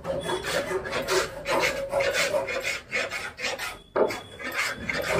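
A hand tool worked back and forth on wood, rasping in even strokes about three times a second, typical of a harmonium craftsman filing or sanding woodwork at the bench.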